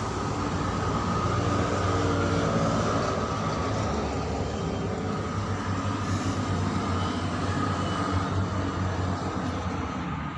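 A large engine running steadily, with a constant thin whine above its low drone.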